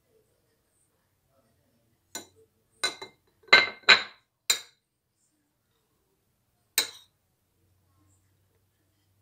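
A metal spoon clinking against a cut-glass bowl while scooping strawberry jam: a quick run of about six clinks a couple of seconds in, then one more near the end.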